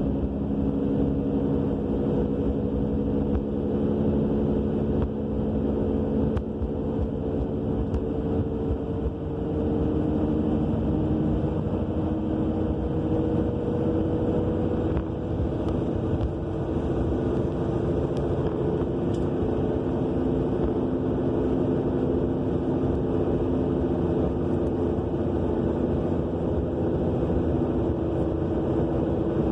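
Inside the cabin of a 2000 Subaru Legacy AWD at road speed: a steady roar from the rear end, with several droning tones that drift slowly in pitch. It persists although the wheel bearing, brakes, calipers and rotors are all new, and its cause is unknown.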